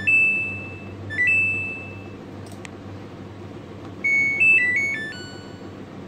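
Samsung WH80A4000 washing machine control board's buzzer beeping as its buttons are pressed: a long beep, a short and a long beep about a second later, and a short tune of stepped notes about four seconds in. There is a single click midway.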